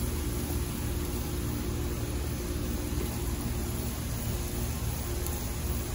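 Steady sizzling hiss over a low hum, from steak, peppers and onions cooking on a cast iron griddle over a lit propane grill.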